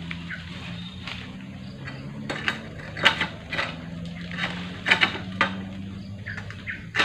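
Egrek (long-pole sickle) working against oil palm frond bases: a scatter of short sharp clicks and scrapes, most of them from about two seconds in, over a steady low hum.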